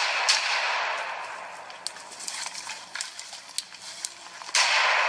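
AR-style rifle shots as the first sounds, then scattered small cracks, and about four and a half seconds in a sudden loud blast as the explosive-packed lawnmower goes off.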